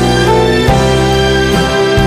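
Background music: sustained instrumental chords with a steady bass line, the notes changing about every half second.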